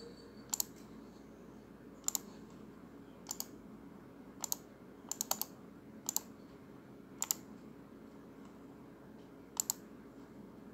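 Computer mouse button clicking, about ten sharp clicks spaced a second or so apart, many in quick pairs, as menu items are picked and text is copied and pasted.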